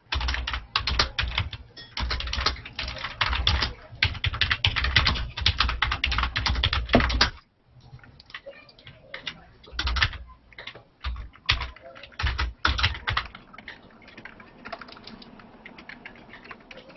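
Computer keyboard typing heard over a video call: a fast, dense run of keystrokes for about seven seconds, then slower, scattered keystrokes.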